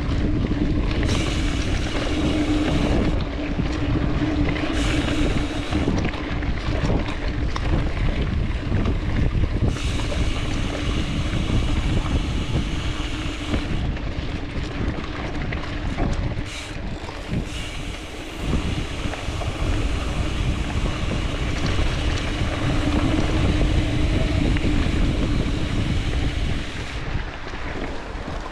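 Wind buffeting the microphone over the rumble of mountain-bike tyres rolling on a rough trail, with a steady low hum underneath.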